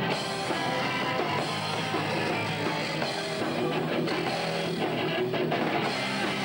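Rock band playing live, with electric guitar and drum kit.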